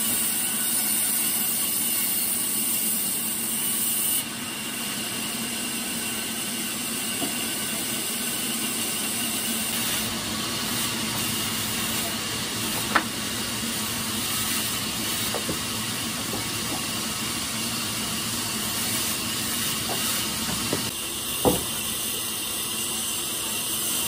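Steady hissing run of sawmill machinery, with a faint hum and whine held under the noise. Two sharp knocks break through, the louder one near the end.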